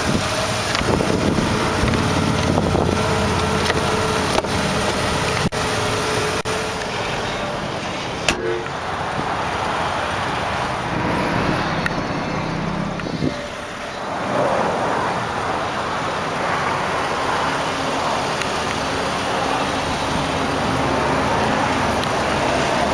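A 2004 Mazda RX-8's 1.3-litre Renesis twin-rotor engine idling steadily, with a brief knock about eight seconds in.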